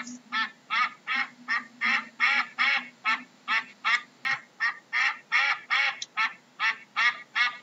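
A duck quacking in a fast, even series, about three quacks a second.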